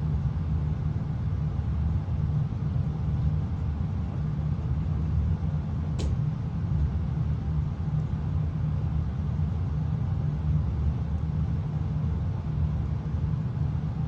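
Steady low rumble with no change in level, with a single sharp click about six seconds in.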